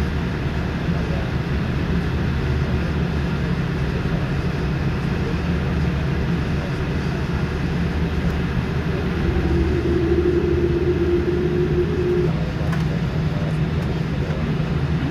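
Cabin noise of a Boeing 787-8 taxiing: a steady low hum from the engines at idle and the cabin air system. About nine seconds in a steady mid-pitched tone joins for about three seconds.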